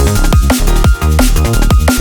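Loud drum-and-bass electronic music with a steady kick-drum beat and heavy bass.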